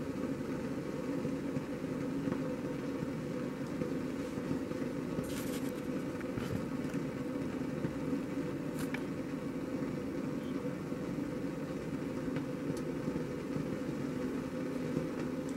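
Gas soldering iron's burner running steadily, a constant low rush of burning gas as the iron heats on its stand, with a few faint clicks.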